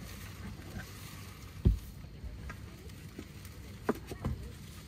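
Board panels of a knock-down table knocking as they are handled and fitted together in a car's cargo area: a heavy thump about a second and a half in, then two lighter knocks near the end, over a steady low background rumble.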